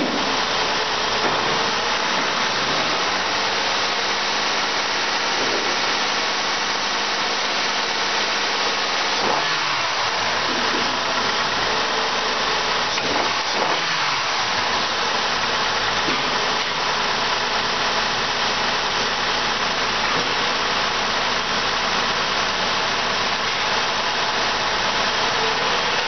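Honda Odyssey's 3.5-litre V6 VTEC engine running at idle during a test run, with a steady hiss. The engine is revved up and back down briefly twice, about a third of the way through and again about halfway through.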